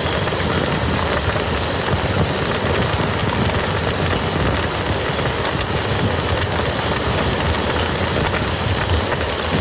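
Wood campfire crackling with many small pops over the steady rush of a flowing river.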